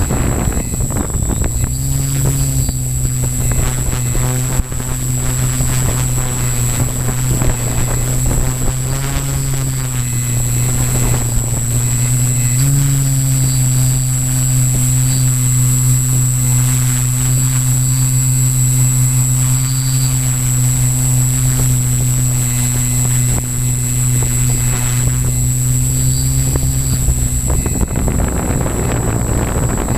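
Zion EX700 multicopter's electric motors and propellers humming steadily in flight, heard through its onboard camera, with a thin high whine above; the pitch rises briefly a few times as the throttle changes. Wind rushes over the microphone at the start and near the end.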